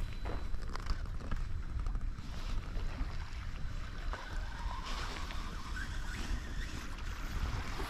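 Wind buffeting the microphone, a steady low rumble with an even hiss over it.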